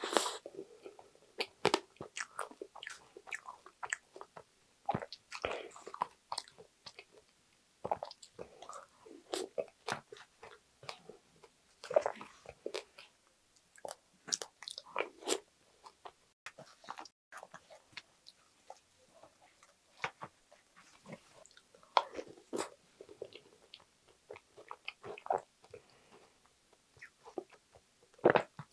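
Close-up eating sounds: wet chewing and mouth smacks of soft strawberry cheesecake soaked in strawberry milk, with some crunch of crumble. A wooden spoon scoops and clicks in a plastic tub, and the sounds come irregularly throughout.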